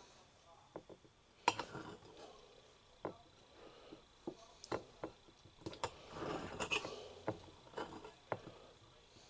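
Kitchen knife cutting up a tomato: faint, irregular taps and clicks of the blade, the loudest about a second and a half in, with a short rustling stretch around six seconds in.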